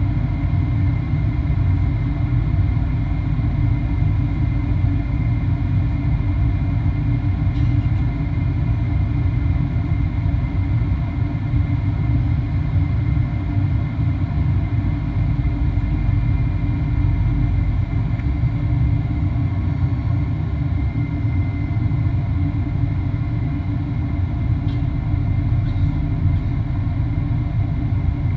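Steady low rumble of a Boeing 737-800 cabin in flight, its CFM56-7B engines and the airflow heard from a window seat over the wing, with a faint steady high whine above it.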